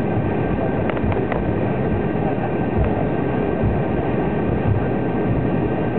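Cabin noise of an Embraer 190 taxiing: a steady rumble of wheels rolling and the twin GE CF34 turbofans at taxi power, heard from inside the cabin, with a faint steady whine above it. A few faint clicks about a second in.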